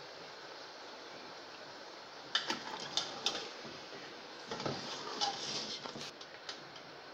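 A metal spoon stirring mutton and ginger-garlic paste in a large aluminium pot: a few sharp clinks of the spoon against the pot about two and a half seconds in, then a couple of seconds of wet scraping and knocking as the meat is turned, over a steady low hiss.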